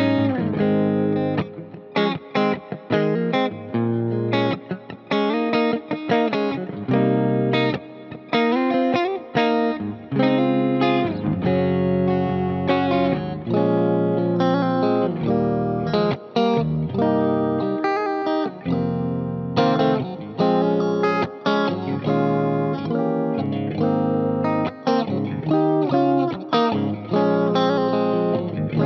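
PRS SE NF3 electric guitar played through an amp-simulator plugin with delay and reverb, a busy run of picked notes and chords over a backing track.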